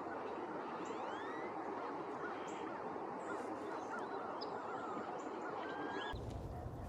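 A flock of waterfowl calling together, a dense steady chatter of quacks and honks, with many short thin chirps of small birds over it. A low rumble comes in near the end.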